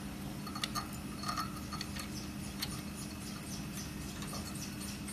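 Several light metallic clicks and taps as hands handle the quartz bar in its steel holder on an ACF/COF bonding machine, one click with a brief ring, over a steady low machine hum.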